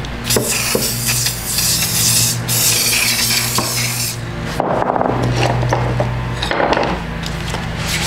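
Aerosol degreaser spraying onto a vise part, a hiss lasting about two seconds near the start, then shorter bursts of spray later on.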